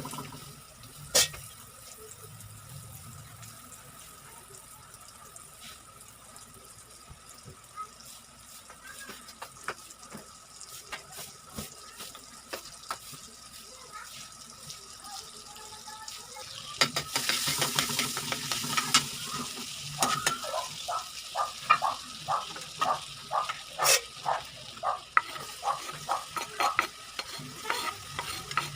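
Food frying in a pan while a utensil stirs and scrapes it. About two-thirds of the way in, the sizzling grows much louder, and stirring strokes follow about twice a second. A faint steady tone runs underneath.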